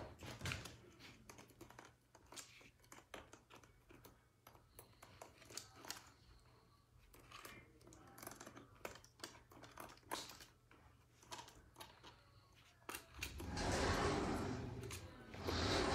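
Scattered clicks, taps and rustles of someone rummaging through and handling objects. Near the end come two louder stretches of rustling and scraping.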